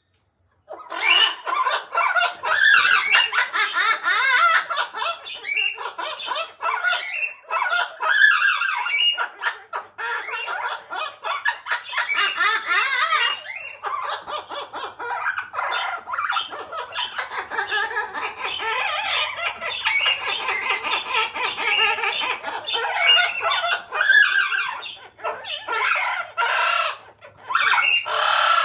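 Amazon parrot calling and chattering almost without pause, a run of warbling, squawky calls with short breaks, starting about a second in after a moment of silence.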